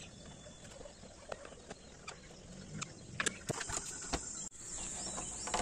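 Light, scattered clicks and knocks of hands handling the radiator, its fittings and the rubber radiator hose in a car's engine bay, growing busier about three seconds in.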